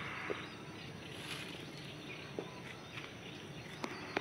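Quiet outdoor garden ambience with faint bird sounds and a few soft ticks.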